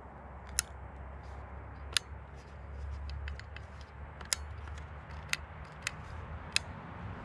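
Sharp small clicks and ticks from hands handling a Daisy Buck 105 BB rifle, about six distinct clicks spread over several seconds, over a steady low rumble.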